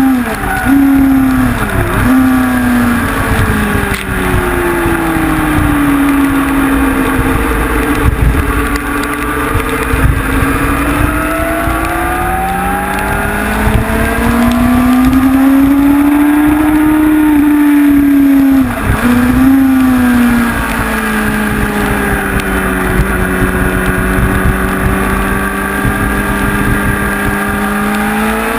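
Honda CBR sport bike's inline-four engine, heard from a GoPro on the bike, running hard on track: the engine note rises and falls in long sweeps, with quick drops in pitch near the start and about two-thirds through as the rider shifts.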